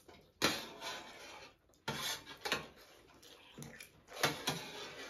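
Sounds of people eating from metal plates: a spoon scraping and clinking against a plate along with mouth noises, in several short bursts.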